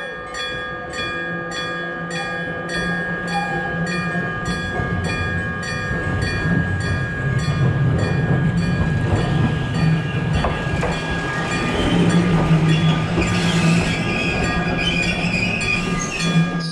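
Randen (Keifuku Electric Railroad) tram pulling into the platform: the rumble of its wheels on the rails grows louder as it nears, with a squeal and a hiss as it slows to a stop near the end. A level-crossing warning bell rings over it with a fast, even ding-ding.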